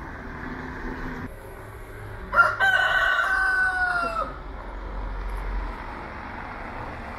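A rooster crowing once, about two and a half seconds in: a sharp start, then a long held note that drops in pitch as it ends, lasting about two seconds.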